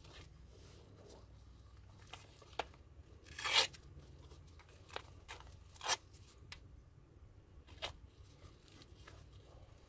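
Hook-and-loop (Velcro) straps on a leg brace being pulled and fastened: a few short rips, the two loudest about three and a half and six seconds in, with smaller strap-handling sounds between.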